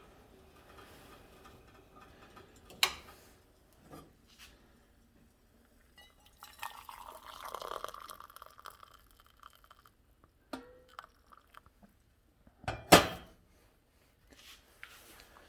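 Two sharp clanks from the container of boiling water being handled, the second and louder one near the end. In between comes a rushing hiss lasting a couple of seconds, as the hot water is flung out into the −15°F air.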